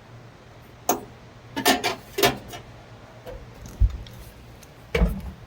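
Several separate clicks and clatters, then low knocks near the end, as a metal fork is put into a microwave oven and the oven is handled.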